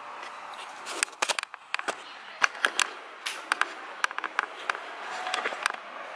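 Steady hiss of rain falling, with a scattered run of sharp clicks and taps starting about a second in.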